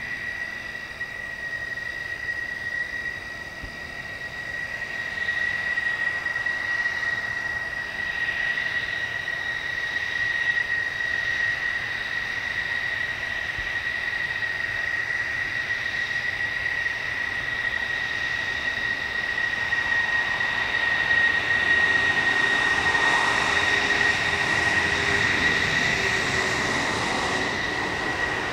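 F-16C fighter jet engines idling while the jets taxi, a steady high-pitched whine that grows louder in the last third.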